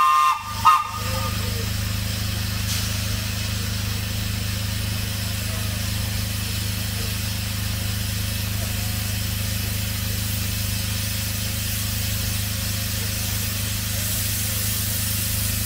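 Two short blasts of a narrow-gauge steam locomotive's whistle, followed by a steady rumble and hiss that does not change.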